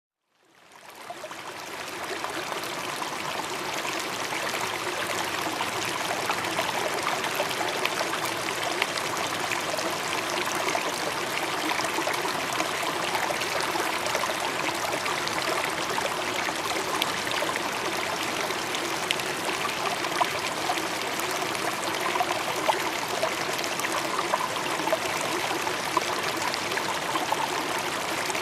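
Waterfall water rushing and splashing in a steady roar of noise, fading in over the first two seconds.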